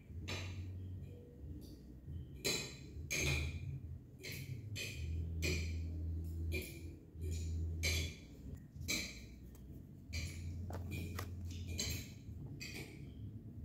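Handling noise from a zippered drone carrying case and its packaging: a string of short rustles and clicks, several a second, over a low hum that comes and goes.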